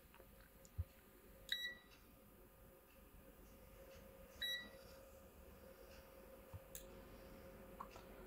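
Digital multimeter beeping twice, short high beeps about three seconds apart, while its probes are held on test points of a laptop motherboard; a faint low knock comes just before the first beep.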